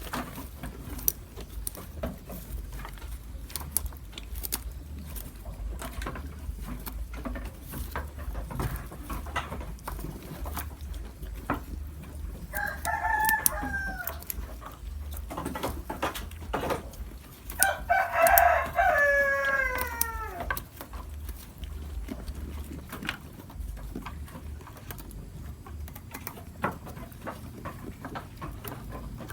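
A goat chewing crunchy food, with many short crisp clicks of crunching. A rooster crows twice, a short crow about twelve seconds in and a longer, louder one around eighteen seconds.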